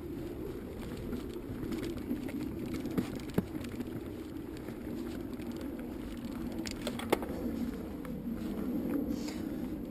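Mountain bike climbing a trail: the 27.5-inch tyres roll steadily over dirt, with a few sharp clicks and knocks from the bike, three of them standing out.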